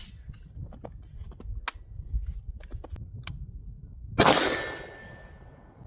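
Single shot from a Great Lakes Firearms Zombie Splatter AR-15 rifle about four seconds in, its echo dying away over about a second, with a few faint clicks before it.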